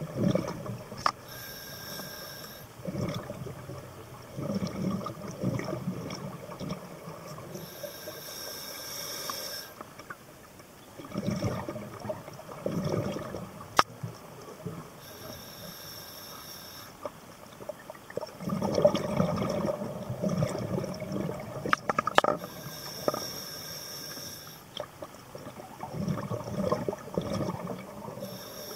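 Scuba diver breathing through a regulator underwater: short hissing inhalations alternating with longer gurgling rushes of exhaled bubbles, about one breath every six to seven seconds. A couple of sharp clicks sound in the second half.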